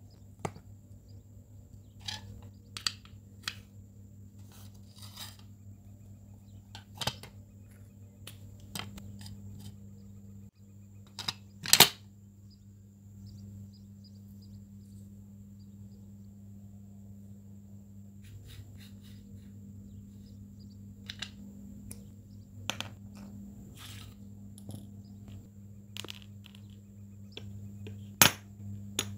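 Scattered sharp clicks and taps over a steady low hum, with one loud click about twelve seconds in and another near the end.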